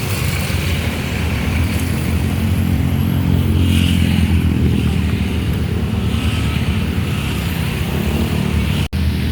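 Large diesel bus engine running close by, a steady low rumble that swells slightly a few seconds in. The sound cuts out for an instant near the end.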